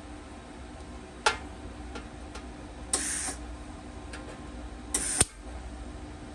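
MIG welder putting down two short tack welds, each a brief crackling burst well under a second long, about two seconds apart, with a sharp click about a second in. A steady hum runs underneath.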